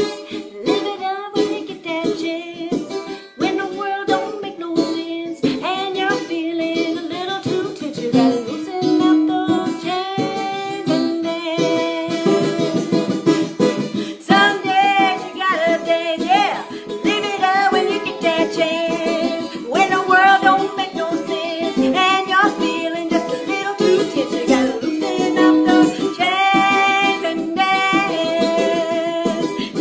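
A woman singing a country song while strumming a ukulele.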